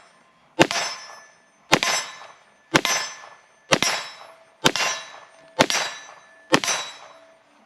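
CZ 75 TS Czechmate 9mm pistol firing 9mm major ammunition: seven sharp shots about a second apart, each followed by a short ringing tail.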